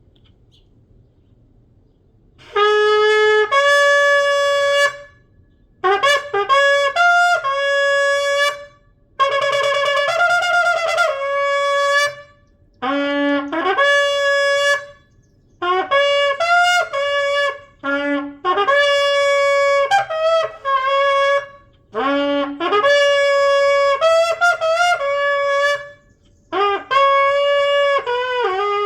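A 51-inch kudu-horn shofar, fitted with a rough, freshly sanded mouthpiece, blown in a series of loud blasts starting about two and a half seconds in. The blasts step between a lower and a higher note, several of them sliding up into the note from below.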